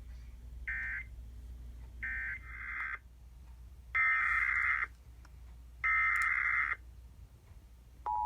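Emergency Alert System SAME digital data bursts: short, harsh screeching bursts about a second apart, which mark the end of the previous alert. They are followed by three longer bursts, about two seconds apart, which are the header of the next alert. About eight seconds in, the EAS two-tone attention signal starts as a steady dual tone.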